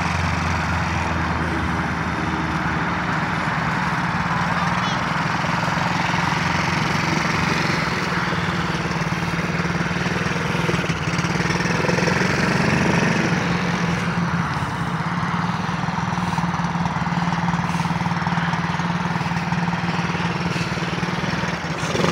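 Small engine of a youth ATV running steadily at low speed as the quad drives across grass, the engine note swelling a little about halfway through.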